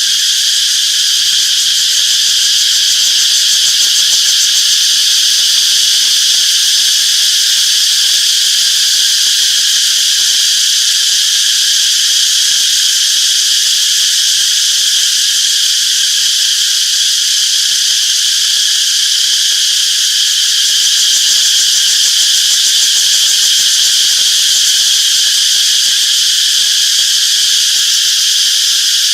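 Chorus of cicadas buzzing in a steady, unbroken high drone that holds its level throughout.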